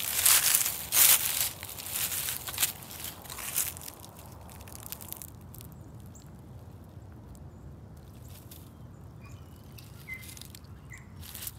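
Footsteps crunching through dry fallen oak leaves for the first four seconds, then stopping. A few faint bird chirps near the end.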